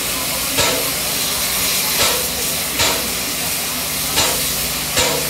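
Stationary steam locomotive hissing steadily, with short louder puffs roughly once a second at slightly uneven spacing.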